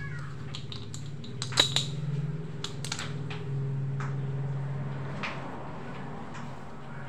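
Scattered sharp crunches and clicks, the loudest about a second and a half in, of a hard, stone-like morsel being bitten and chewed, over a steady low hum.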